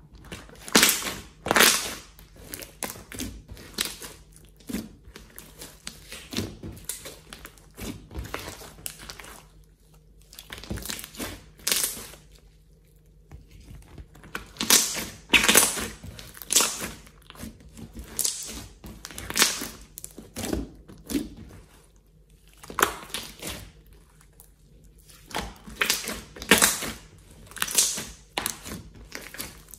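Large, glossy slime being stretched, folded and squeezed by hand on a tabletop: wet, sticky crackling and popping that comes in bursts as the slime is pulled and pressed, with quieter gaps between.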